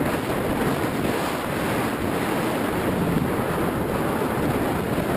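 Rushing air over the microphone of a GoPro riding on an Easy Star II RC plane in flight: steady, loud wind noise.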